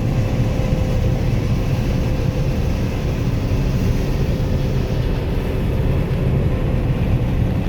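Farm harvest machinery running steadily in a soybean field: a constant low engine drone with a faint steady hum over it.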